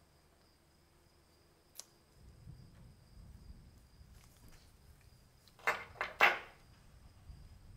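Small rusty metal lighter parts being handled and set down on a wooden table: a faint click about two seconds in, a low rustle of handling, then three short clacks in quick succession near six seconds in, the loudest sounds.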